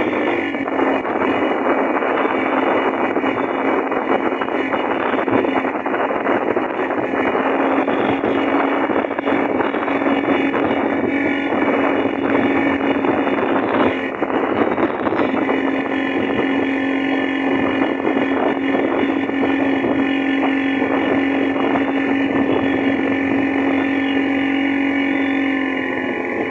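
Motorboat engine running steadily under way, a constant hum over the rush of water and wind.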